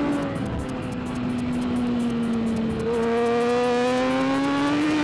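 BMW S1000RR superbike's inline-four engine, heard on board. Its note holds low and dips slightly through a corner, then climbs steadily in pitch from about halfway in as the throttle opens on the exit.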